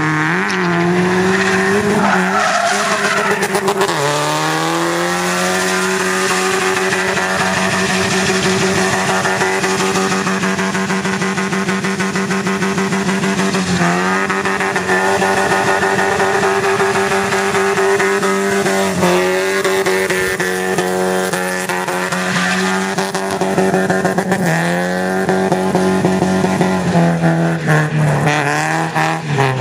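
4x4 SUV engine held at high revs while drifting, its pitch dropping and climbing back several times, most often near the end, with the tyres skidding and squealing.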